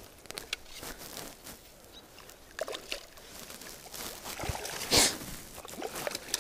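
Lake water splashing and sloshing at the shoreline as a hooked trout thrashes at the surface while being reeled in and netted, with scattered light clicks and one louder splash about five seconds in.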